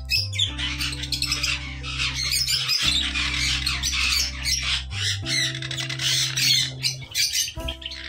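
Sun conures squawking in a rapid stream of harsh, high calls while the pair mates, over background music with sustained low notes that change every few seconds.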